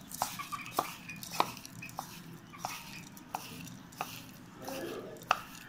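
A hand stirring damp crushed grain feed in a ceramic plate, the grain rustling, with a sharp clink against the plate about every two-thirds of a second. The loudest clink comes near the end.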